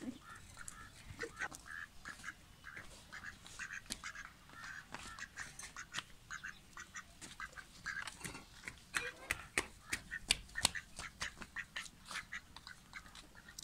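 White domestic duck giving a steady run of short quacking calls, several a second, with sharp clicks and taps mixed in.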